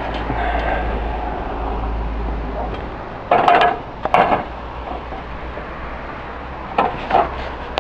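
Clay roof tiles clattering and knocking against each other as they are handled and set in place on the roof battens: two loud clatters a little after the middle, and two lighter knocks near the end.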